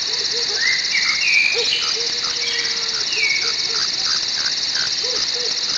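Nature ambience of animal sounds: a steady, fast-pulsing insect chorus, with frogs calling in short repeated notes and birds calling in gliding notes over it.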